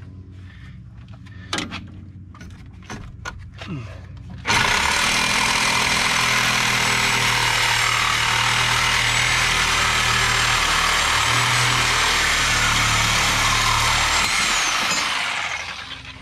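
A handheld power tool cutting down a metal exhaust bracket: after a few knocks, it starts suddenly about four seconds in and cuts with a loud, steady high whine for about ten seconds, then winds down and fades near the end.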